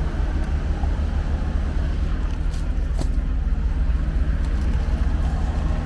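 A car driving, with a steady low engine and road rumble that does not change.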